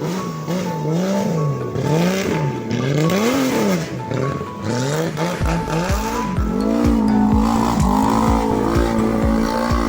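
Rally car engine revving up and down again and again, its pitch climbing and dropping with throttle and gear changes, then held higher near the end. Background music plays underneath, with a steady beat coming in about halfway.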